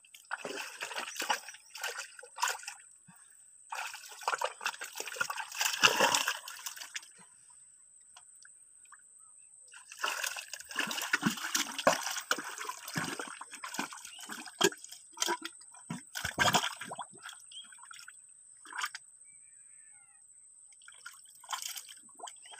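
Hands groping and scooping in shallow muddy water and wet mud: sloshing, splashing and squelching in irregular bursts, with quiet pauses about a third of the way in and again near the end.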